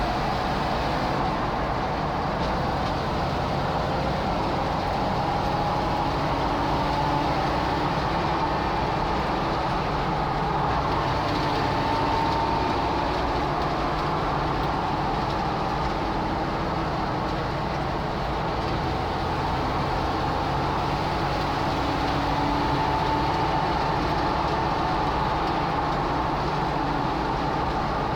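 Jeep TJ running with a steady whine that drifts slightly up and down in pitch over a constant low hum and rushing noise: the weird noise the owner is recording.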